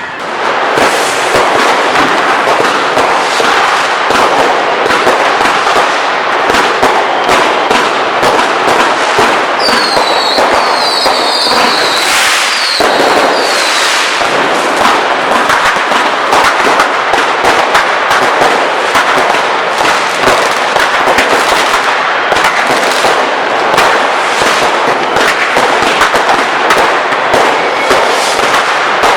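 A dense, continuous barrage of fireworks and firecrackers going off in the street, a constant crackling of many bangs. Several short whistles come through near the middle.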